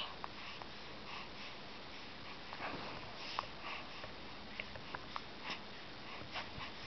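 Soft breathing and sniffs from a young baby, with a few small clicks.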